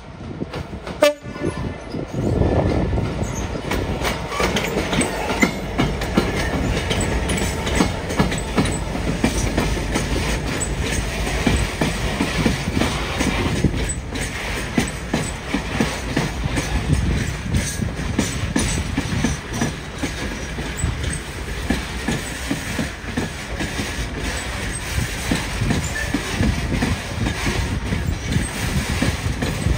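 A train running past, with its wheels clattering over the rail joints; a sharp click sounds about a second in.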